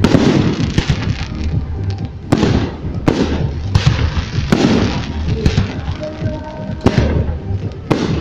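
Fireworks display: aerial shells bursting in a series of loud bangs about a second apart, each followed by crackling and a low rumbling echo.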